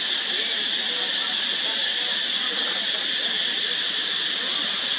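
Steady, high-pitched insect drone, such as cicadas, that holds at an even level without a break.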